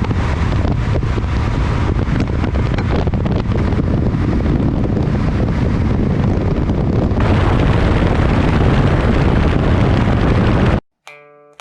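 Loud, rumbling wind noise buffeting a GoPro's built-in microphone. It grows a little brighter about seven seconds in and cuts off abruptly near the end, just before guitar music starts.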